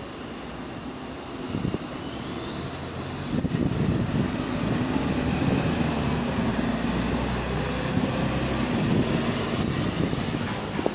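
A Volvo B9TL double-decker bus's diesel engine pulling under load, getting louder about three seconds in and then holding steady, with a rough rasp from an exhaust leak. A thin high whine rises over a few seconds, then slowly sinks.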